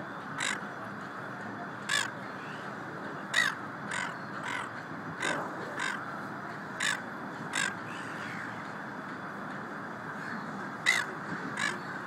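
Silver gulls giving about ten short, harsh calls at irregular intervals, with a pause of a few seconds before the last two, over a steady background hiss.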